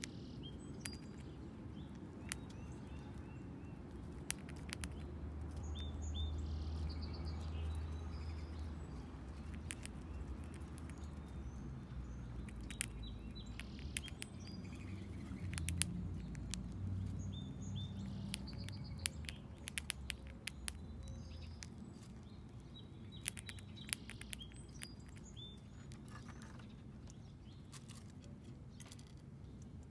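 Faint outdoor ambience of small birds chirping in short, scattered calls over a low rumble that swells through the middle. Close by, a gray squirrel gives crisp clicks and crunches as it chews corn kernels, most often in the middle of the stretch.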